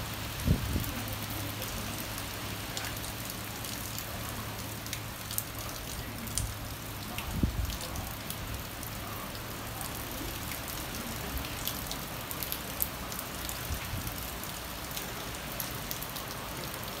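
Steady downpour of hurricane rain, with sharp drip clicks scattered through it. Two dull low thumps come about half a second and seven seconds in.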